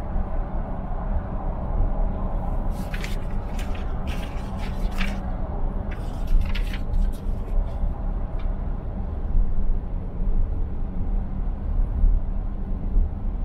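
Steady low road and engine drone inside the cabin of a Range Rover L405 cruising at motorway speed. A few light clicks come between about three and seven seconds in.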